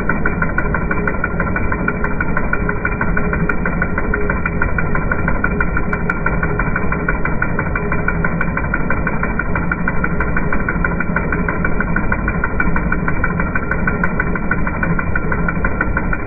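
Engine with twin-injector throttle-body fuel injection idling steadily, with a regular ticking of about five ticks a second from the pulsing fuel injectors.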